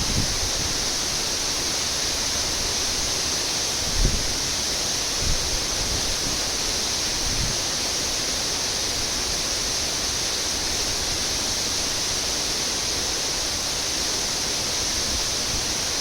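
Waterfall pouring steadily, a continuous, even hiss of falling water. Two brief low thumps come about four and five seconds in.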